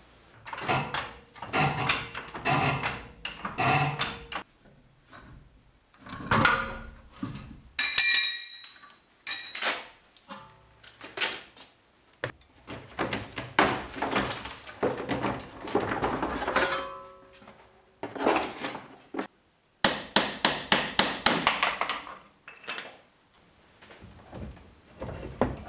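Workshop sounds of a car being taken apart: repeated metallic knocks, clanks and rattles of tools and parts, with a brief ringing metal sound about eight seconds in and a longer stretch of steady mechanical noise in the middle.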